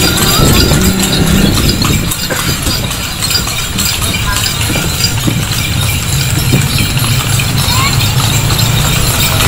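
Hooves of a horse pulling a passenger carriage, clip-clopping along the road at a steady walk.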